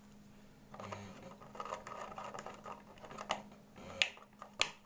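Light kitchen handling noises: scraping and rustling, then three sharp clicks near the end, over a faint steady hum.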